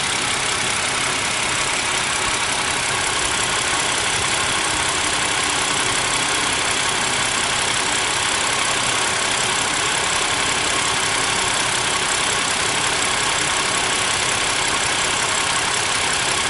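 BMW E60's engine idling, fully warmed up, with its electric cooling fan running: a steady, even noise.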